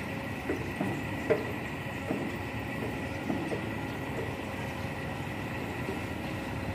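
A sand barge's diesel engine running steadily with a thin constant whine, overlaid by light, irregular knocks as the anchor is wound in.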